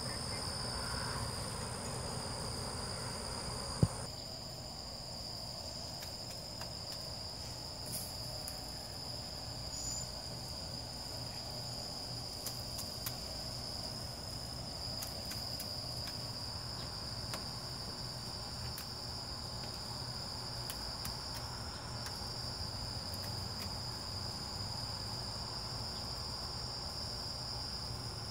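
Crickets trilling, a steady high continuous tone throughout, with one sharp click about four seconds in.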